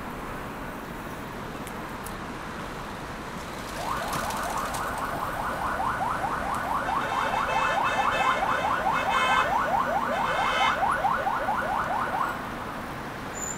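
Electronic alarm sounding in a fast run of rising sweeps, about five a second. It starts about four seconds in, grows louder, and cuts off suddenly about eight seconds later, over steady street noise.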